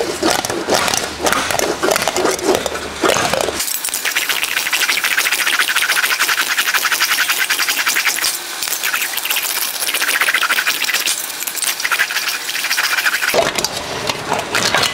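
A sheet-metal panel being rolled back and forth through an English wheel under light to medium pressure, with a rapid, continuous scraping rattle of metal between the wheels as the panel's lumps and edge wrinkles are planished out. About three and a half seconds in, the sound turns abruptly thinner and brighter, and it returns to its fuller sound near the end.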